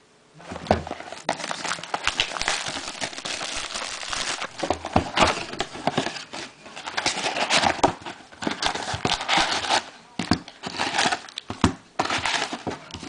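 Plastic wrapping crinkling and tearing as a factory-sealed box of trading cards and its packs are torn open, with many sharp crackles and clicks.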